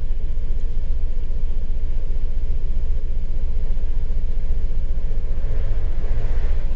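Jeep Wrangler's 3.8-litre V6 idling steadily during a cam-crank relearn. The engine has the misfire it came in for, with its camshaft and crankshaft signals out of sync.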